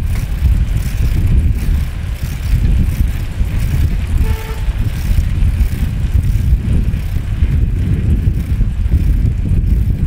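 Road traffic running past with a steady low rumble, and a short vehicle horn toot about four seconds in.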